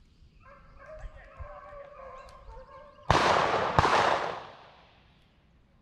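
Hunting dogs baying with long, held cries, then two loud gunshots less than a second apart about three seconds in, each trailing off over about a second through the woods.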